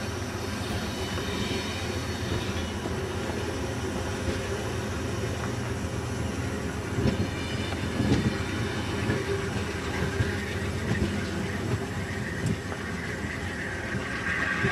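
Amtrak Amfleet passenger coaches rolling past as the train pulls out of the station: a steady rumble of wheels on rail, with a few knocks over rail joints about seven and eight seconds in. A higher-pitched wheel squeal rises near the end as the last car goes by.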